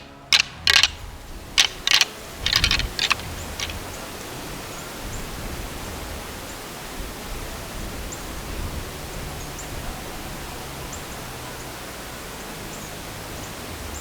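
Rattling antlers being clashed and ground together, a string of sharp clacks that ends about four seconds in. The rattling mimics two bucks fighting to draw in a cruising buck. After that there is only a steady outdoor hiss.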